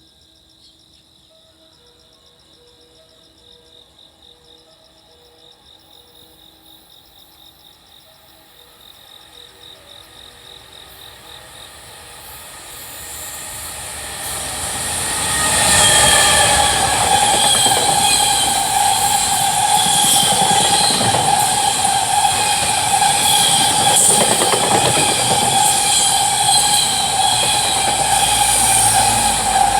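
Freight train, most likely hauled by a JR Freight EF210 electric locomotive, approaching and passing at speed. A rumble builds over about fifteen seconds into a loud, steady run of wheels and wagons, with clicks from the rail joints and a steady ringing tone over it.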